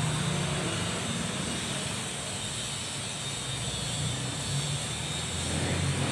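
Low, steady engine hum of a motor vehicle running in the background, growing louder near the end.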